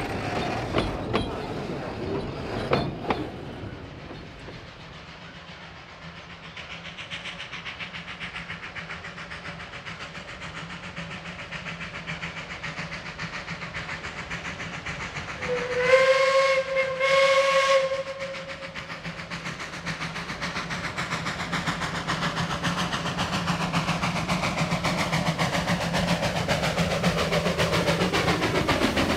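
Two blasts of a steam locomotive whistle about halfway through, each about a second long on one steady pitch. Before them the tail of a train's carriages clatters past at the start. After them the exhaust of a narrow-gauge NA class steam tank locomotive chuffs steadily, growing louder as it approaches.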